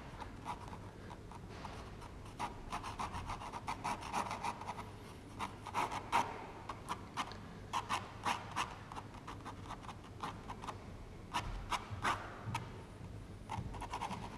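Ink pen scratching across rough 300 lb Arches watercolour paper in quick, loose sketching strokes: an irregular run of short scratches in clusters, with brief pauses between.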